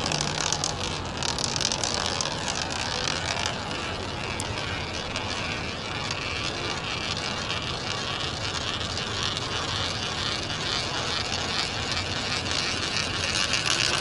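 A coin rolling round a coin-vortex wishing funnel, a steady high whirring rattle that grows a little louder near the end as the coin spirals into the centre hole.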